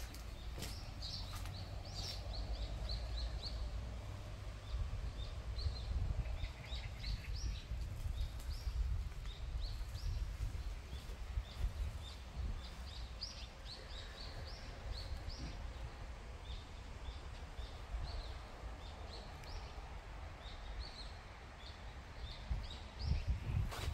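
Small birds giving many short, high chirps over a steady low outdoor rumble.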